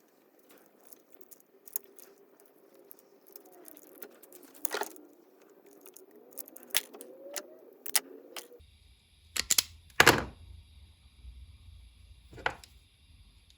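Wire cutters and strippers clicking and snipping as trailer wiring is cut and its insulation stripped, with small metallic tool clinks. The sharp clicks are scattered throughout, and the loudest few come in the last few seconds.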